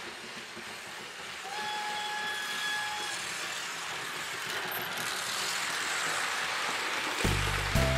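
Märklin model train, an E10 electric locomotive hauling coaches, running along the track with a steady rolling rumble that grows louder as it approaches. A brief steady whistle-like tone sounds about a second and a half in, and music comes back in near the end.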